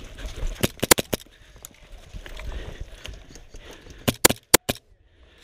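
Airsoft gunfire: sharp cracks in two quick groups of about four shots, the first about a second in and the second about four seconds in.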